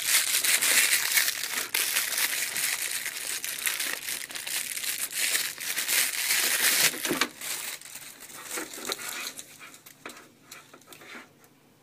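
Tape being pulled off and crumpled from a dehumidifier's power cord: a dense crinkling crackle for about seven seconds, thinning to fainter scattered crinkles.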